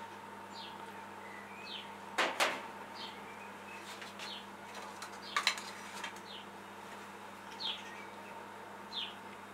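A metal spoon clinks sharply twice, a double click about two seconds in and again about five seconds in, as corn syrup is spooned from a glass jar. Behind it a small bird gives short, high falling chirps about once a second, over a faint steady hum.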